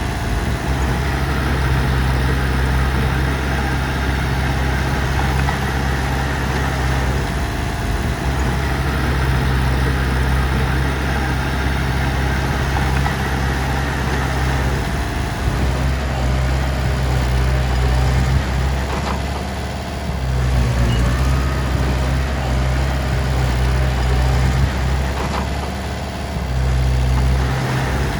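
Heavy diesel engine running steadily with a low drone, its note easing briefly a couple of times.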